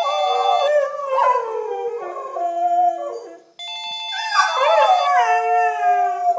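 Two dogs, a Siberian husky among them, howling together to a phone ringtone: long wavering howls that glide up and down. The ringtone's electronic tones play under the howls near the start and again from about four seconds in, and the howling breaks off briefly just before the second ring.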